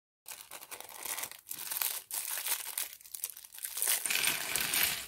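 Logo-intro sound effect: a dense, hissing crackle that drops out briefly a few times and grows brighter about four seconds in.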